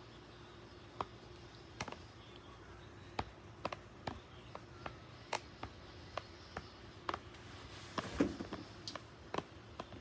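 Toothbrush tapping and pressing on gel: irregular small sticky clicks, about one or two a second, with a louder cluster about eight seconds in.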